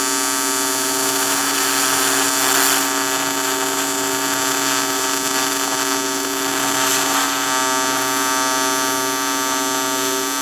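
AC TIG welding arc on aluminum, a steady buzz. The balance is set to 60% electrode positive, too much cleaning, which makes the tungsten ball up and disappear.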